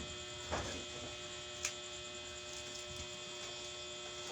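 A steady electrical hum made of several constant tones, with a brief rustle about half a second in and a single light click a little after one and a half seconds.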